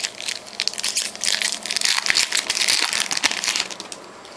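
A foil trading-card pack wrapper being torn open and crinkled by hand: a dense crackling that is loudest in the middle and dies down about three and a half seconds in.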